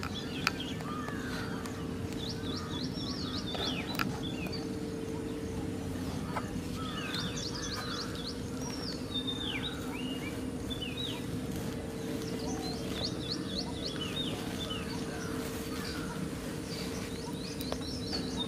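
Small birds chirping in short runs of quick notes, over a steady low hum. A couple of light knocks sound near the start.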